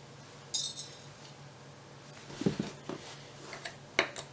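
A short ringing metal clink about half a second in, as the claw hammer used for pulling upholstery tacks is put down against metal. Then a few soft knocks and handling of the fabric-covered chair seat, with a sharp click near the end.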